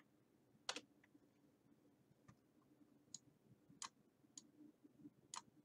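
Faint computer mouse clicks, about six scattered singly over a few seconds, against near silence.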